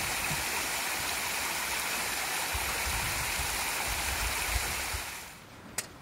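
Steady rush of a mountain stream, with irregular low thumps underneath; the rushing drops away about five seconds in.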